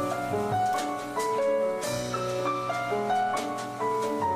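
Background instrumental music: a melody of short stepping notes over light percussion, in a jazzy style.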